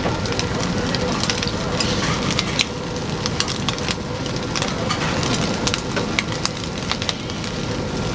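Pieces of hagfish sizzling and crackling on a wire mesh grill over glowing coal briquettes, with frequent sharp pops through a steady hiss.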